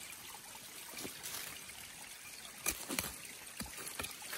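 A hand digging tool scraping and knocking in loose soil: about six short sharp clicks scattered through, the strongest a little under three seconds in, over a steady faint hiss of outdoor background.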